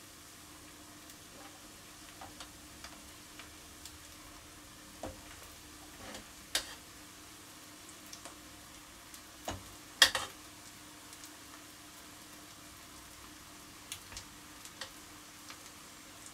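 Cooked rice being spooned into a pan of spiced onions: scattered light clicks and knocks of the utensil against the pans, the loudest about ten seconds in, over a faint steady hiss of the pan on low heat.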